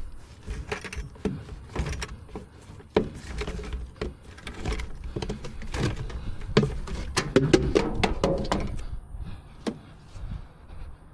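Irregular clicks, knocks and clatter of tools and a tire being handled during a tire change, thickest in a run about two-thirds of the way through, over a steady low rumble.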